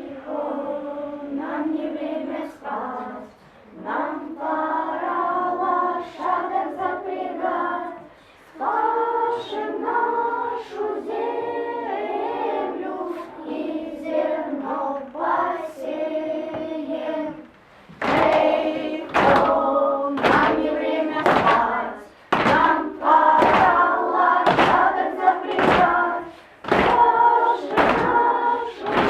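A class of young children singing a song together in unison. About two-thirds of the way through, a steady struck beat joins the singing, about three beats every two seconds.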